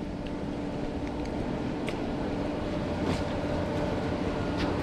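HGV lorry driving: a steady engine and road rumble with a low hum and a few light knocks and rattles.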